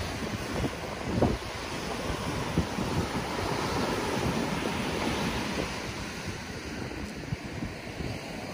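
Small surf breaking and washing up a sandy beach over lava rocks, with wind buffeting the phone microphone. There is a brief low thump about a second in.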